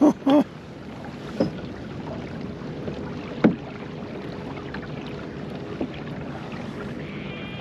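Kayak on the water: steady wind noise on the microphone and water against the hull, with a few short knocks spaced about two seconds apart and a faint steady hum.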